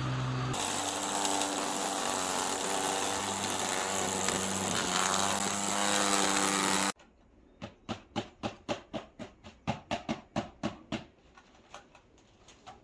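A Ryobi 18V cordless garden power tool (lawnmower or grass trimmer) running at speed with a steady electric-motor whine and hiss, which cuts off abruptly about seven seconds in. A run of sharp, regular clicks follows, about four a second, fading out near the end.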